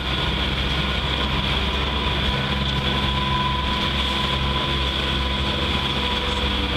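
Motorboat engine running steadily at speed, a constant low drone mixed with the rush of water and wind.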